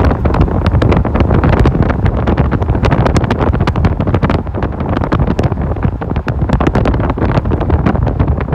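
Strong wind buffeting the microphone: a loud rushing noise with a deep rumble underneath and dense, rapid crackling all through it.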